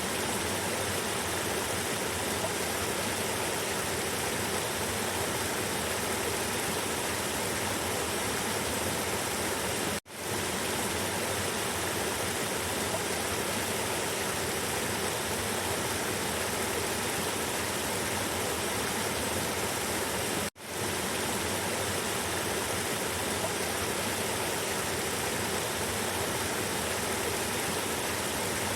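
River water flowing, a steady even rush spread over low and high pitches. The sound cuts out abruptly twice, about ten and twenty seconds in, and swells back within a second each time.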